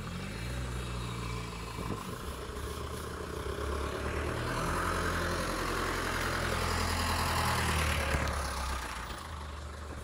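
Ice cream van's engine running as it drives past close by, growing louder to a peak between about five and eight seconds in, then fading.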